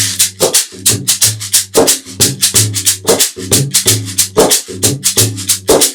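Homemade shaker filled with small steel bicycle ball-bearing pellets, shaken in a quick, even rhythm of several crisp rattling strokes a second.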